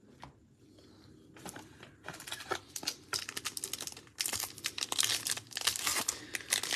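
Foil wrapper of an Upper Deck hockey card pack crinkling and tearing as it is ripped open by hand. It is a dense run of crackles that starts about a second and a half in and gets louder about four seconds in.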